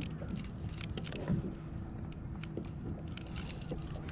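Scattered small clicks and rattles of hands and a tool working at a hook on a kayak, over a steady low rumble.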